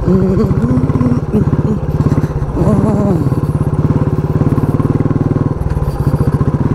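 Motorcycle engine running steadily under way, its firing pulses heard close up from the bike, with a change in its note about five and a half seconds in. A voice sounds briefly near the start and again about three seconds in.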